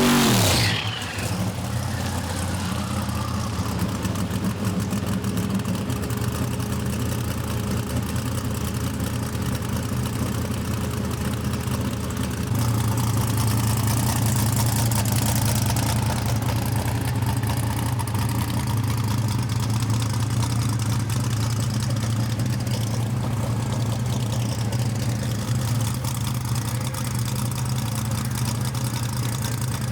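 Drag race car engines idling steadily, a little louder from about halfway through. A high-revving engine fades away within the first second.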